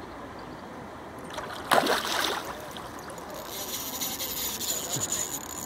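A short splash about two seconds in from a hooked tambacu thrashing at the surface, then a spinning reel on an ultralight rod rasping for about two seconds as the fish is fought.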